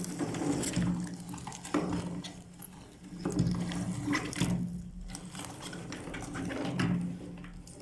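Electric meat grinder running with a steady motor hum while chili peppers are forced through it, making wet squishing and crackling noises that surge every second or two.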